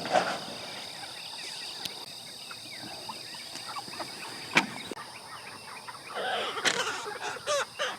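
Chickens squawking and clucking as they are caught and handled, loudest near the end, over a steady high drone of insects. A single sharp knock about halfway through, from a crate or coop being handled.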